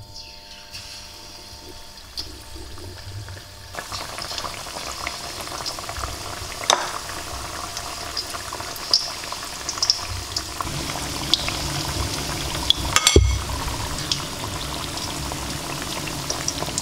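Battered sweet potato slices frying in hot oil in a stainless steel pan. The oil starts crackling and sizzling about four seconds in and grows denser and louder as more pieces go in. A few sharp clicks sound through it, with a loud knock about thirteen seconds in.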